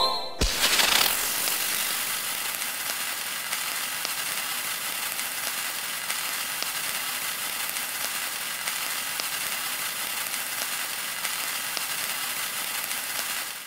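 A steady scratchy hiss with faint scattered ticks, a sound effect from a cursive-handwriting alphabet app, which cuts off suddenly at the end.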